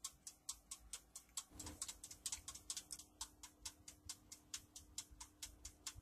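Dash mini toaster oven's mechanical timer dial ticking evenly, about four ticks a second, as it counts down the cooking time.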